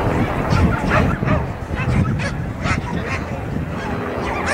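A dog barking repeatedly in short, sharp yips, about two a second.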